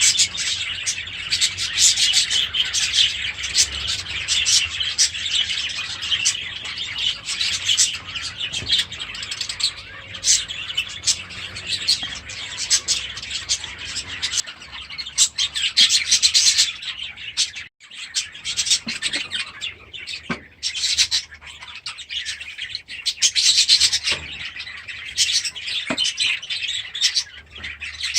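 A flock of budgerigars chattering and chirping continuously, with a brief break about two-thirds of the way through.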